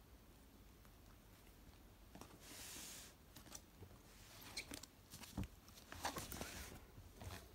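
Cardboard box and packaging being handled: soft rustles, scattered light taps and one sharp knock about five and a half seconds in as the box is shifted and turned over.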